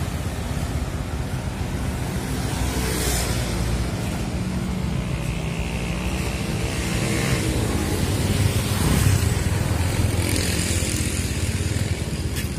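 Motorcycle engine running at low speed, with road noise.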